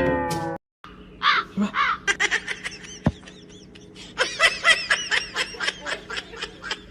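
High-pitched laughter: quick giggling in two bouts, the second a couple of seconds after the first.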